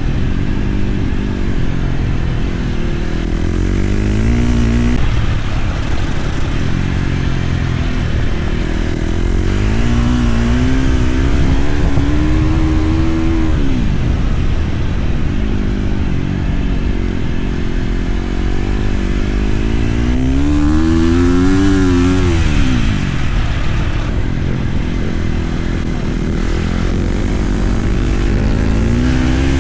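Flat track motorcycle engine revving up and shutting off again and again as the bike circuits the dirt oval, its pitch climbing and then falling away several times.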